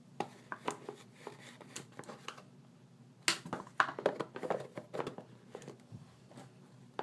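Light handling sounds of food-prep items: a run of small clicks, taps and crinkles, busier and louder from about three seconds in.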